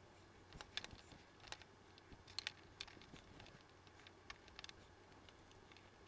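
Faint, scattered clicks and taps of small hand work: a small screwdriver and wires being handled at an electrical outlet in a metal junction box.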